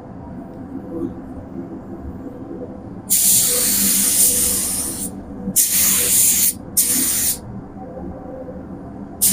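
Pneumatic paint spray gun hissing as a coat of paint is sprayed on, in three passes: a two-second one starting about three seconds in, then two shorter ones. A steady low hum runs underneath.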